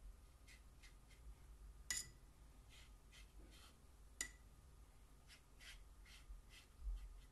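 Faint, soft dabs of a fine paintbrush laying watercolour on paper, with two sharper clicks about two and four seconds in.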